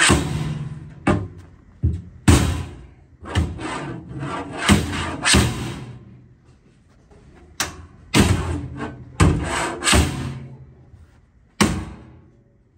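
Metal ATM cabinet struck and pried with a long-handled bar: a string of sharp metallic bangs and clanks with ringing tails, about fifteen in all, with a short lull about midway. It is being broken open to reach the cash box.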